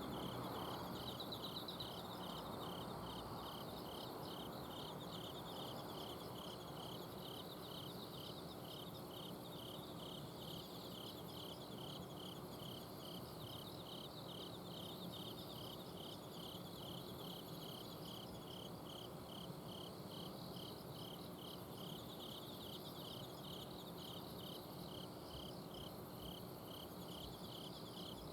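Several autumn crickets chirping at night: one repeats evenly spaced chirps while others trill higher and overlap. Underneath runs the low, steady hum of an air-conditioner outdoor unit.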